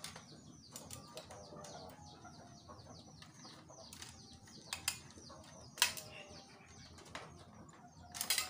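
Sharp clicks and knocks of a ring light being pushed and twisted onto the mount of its tripod stand, loudest about six seconds in and just before the end, over a steady run of short falling bird chirps.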